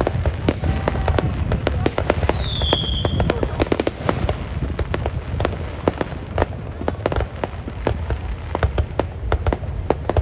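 Fireworks going off: many sharp cracks and bangs in quick succession over a low rumble, with a short falling whistle about two and a half seconds in.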